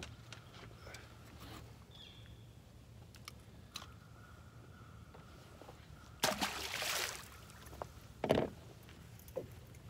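Water splashing and sloshing beside a bass boat as a landed bass is handled and released over the side. The loudest is a splash about six seconds in, followed by a shorter one about two seconds later, over a faint steady hum with a thin high tone.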